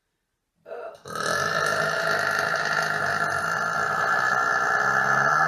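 A person burping: a short burp about half a second in, then one long, drawn-out burp from about a second in that is still going at the end, its pitch wavering near the end.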